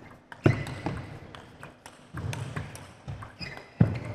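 Table tennis rally: the plastic ball clicking off rubber paddles and the table in quick succession. Two heavier knocks with a deep thud under them come about half a second in and near the end.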